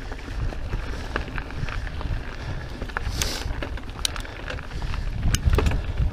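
Santa Cruz Megatower mountain bike descending a dry, rocky dirt trail: wind rumbling on the camera microphone and tyres crunching over gravel, with many scattered sharp clicks and rattles from the bike and stones. A brief hiss about three seconds in.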